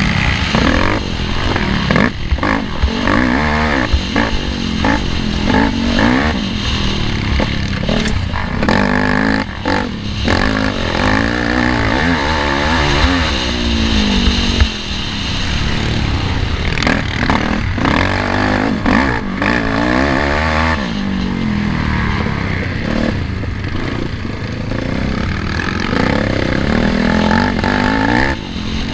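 Race ATV's engine revving up and down again and again as the quad is ridden hard over a rough dirt track, heard close from an onboard camera, with frequent knocks and clatter from the bumps.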